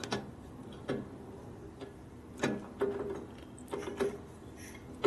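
Irregular mechanical clicks and knocks, about six over a few seconds, some with a short ring: tools and parts being handled during brake bleeding.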